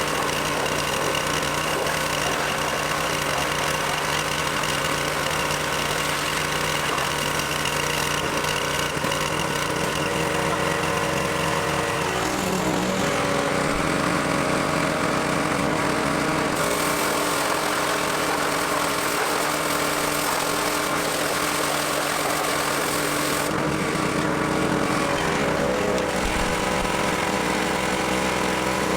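Pressure washer's engine running steadily, with the hiss of the water spray growing and fading a few times.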